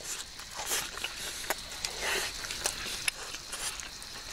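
A person chewing food close to the microphone, with scattered sharp clicks and pops from a small wood fire.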